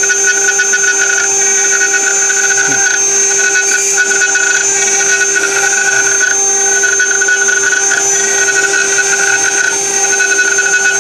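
A CNC milling spindle cuts an aluminium billet with a carbide end mill. It makes a steady whine, with a ringing squeal that drops out and returns about once a second. This is tool chatter, which the machinist puts down to too deep a cut and a long-reaching bit.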